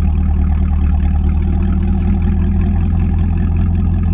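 A car engine idling steadily with a deep, even note.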